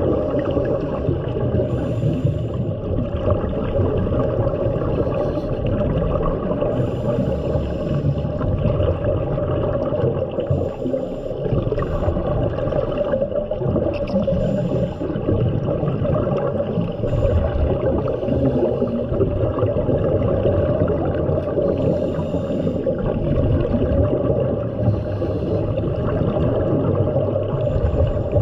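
Underwater sound through a submerged camera: a steady muffled rumble of water, broken every few seconds by short hissy bursts of scuba regulator exhaust bubbles.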